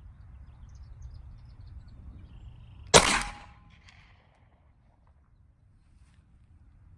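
A single pistol shot from a Glock 43X 9mm, about three seconds in, with a short echo trailing off.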